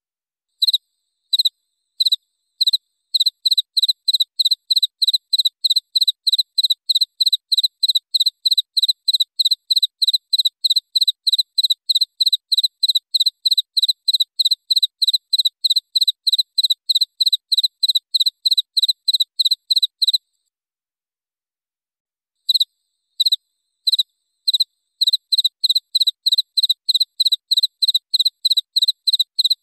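Cricket chirping in an even pulsing rhythm of about three clear, high chirps a second. It starts with a few spaced chirps, stops about twenty seconds in, and starts again about two seconds later, again with a few spaced chirps before settling back into the steady rhythm.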